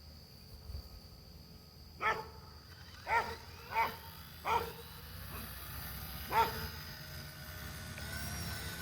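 Five short barks from an animal, spaced about a second apart with a longer gap before the last and loudest one, over a steady high whine.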